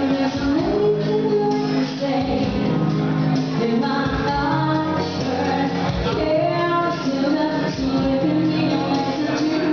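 A live band playing a song, with a woman singing lead over a steady beat.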